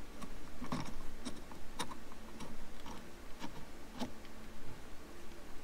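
Light, irregular clicks, about one or two a second, from a hex key being turned on the bolts that fasten an aftermarket steering wheel to its hub.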